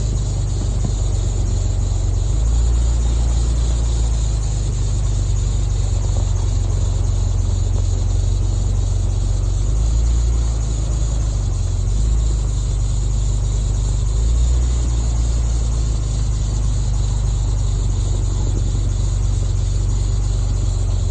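Jeep Wrangler Unlimited driving slowly along a snow-covered trail: a steady, loud, low rumble from the engine and drivetrain over a hiss of road and air noise, swelling briefly a few times as the throttle changes.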